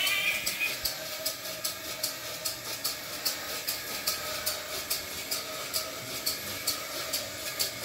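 Vintage battery-operated bump-and-go ladybug toy running: a steady small electric motor hum with an even click from its mechanism about three times a second. A warbling high tone stops under a second in.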